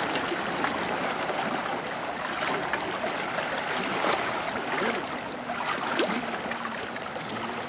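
Small waves lapping and splashing against shoreline boulders: a continuous sloshing with fine crackling spray.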